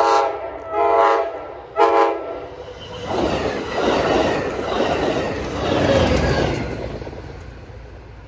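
Commuter train horn sounding three blasts, the last one short. The passenger train then passes close by, its wheels clattering over the rail joints and rumbling before fading away.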